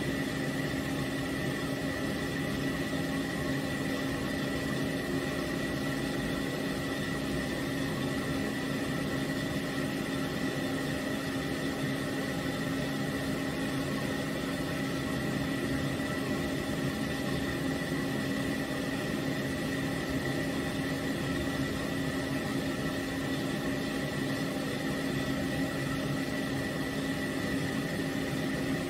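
Stand-mounted pet grooming dryer blowing steadily: an even rush of air over a constant motor hum and a thin high whine.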